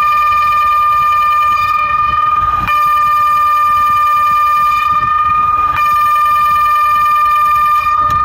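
DIGITEX DSE600S electronic siren sounding on test: a loud, steady, high single tone that does not rise or fall. It breaks off for a moment twice, about three seconds apart.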